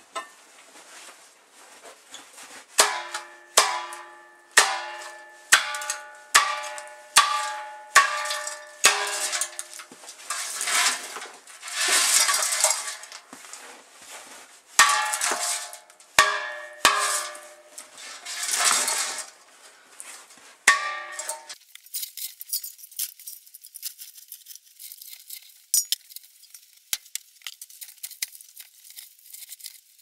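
A hatchet chopping through strings of Christmas lights on top of a metal milk can: a run of sharp blows, roughly one a second, each leaving the can ringing at the same tones. The chopping stops about two-thirds of the way through, leaving a faint crackle and hiss.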